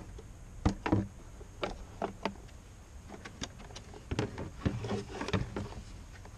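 Hands working on a car's wiring harness, wrapping wires with insulating tape: a string of irregular clicks and short crackles of tape and plastic. They are loudest about a second in and again around four to five seconds in.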